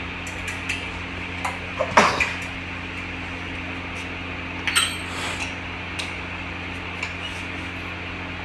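Scattered metal clinks and knocks as a pedestal fan's wire back guard and its fittings are handled and a screwdriver is picked up, with the loudest knock about two seconds in, over a steady low hum.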